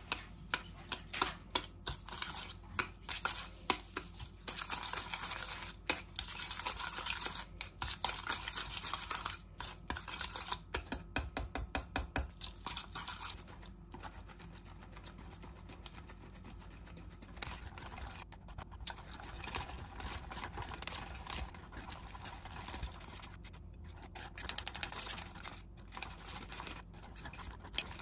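Small wire whisk mashing and beating silken tofu in a stainless steel bowl, its wires clicking and scraping against the metal. A fast run of loud taps comes about halfway through. After that it settles into softer, steadier stirring as the mixture turns creamy.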